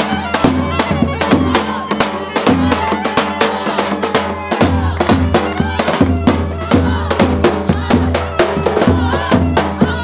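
Music with a fast, steady drum beat under sustained pitched tones and a wavering melodic line.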